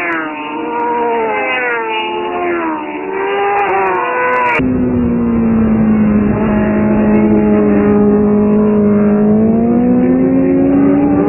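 Racing sport motorcycles (superbikes) at high revs. Several engines rise and fall in pitch together through gear changes and the corner. After an abrupt cut about halfway through, one loud, steady engine note holds, dips slightly, then climbs again near the end.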